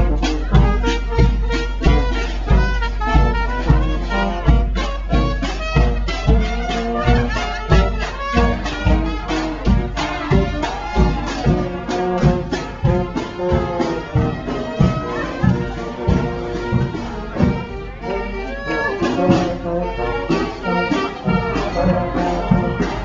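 Brass band playing a tune over a steady drum beat of about two strikes a second.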